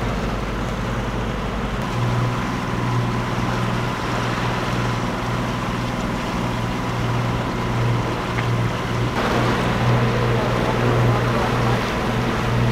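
Sailboat's inboard diesel engine running steadily under way, a low pulsing hum over the rush of wind and sea.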